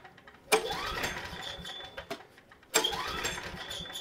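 Two pulls on the recoil starter of a Coleman Powermate 5000/6250 portable generator. Each sets off a sudden burst of cranking that fades over about a second and a half without the engine catching. This is typical of this generator, which usually needs carburetor cleaner sprayed into the carb before it will start.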